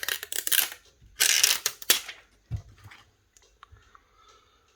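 Plastic crinkling in two bursts, then a dull knock and a few faint light clicks, as the replacement back glass and parts are handled.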